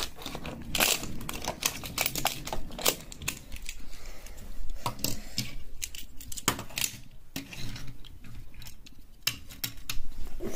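Scattered light clicks and taps of Hot Wheels die-cast toy cars and plastic track pieces being handled and knocked about.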